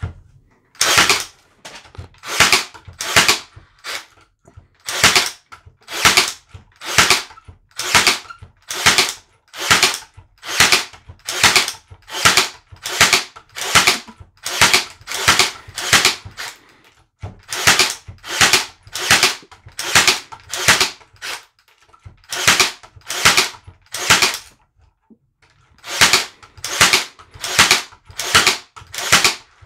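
WORX Nail Force battery-powered 18-gauge brad nailer fired rapidly into a wooden board: a sharp snap with each shot, about two a second, with a few short pauses.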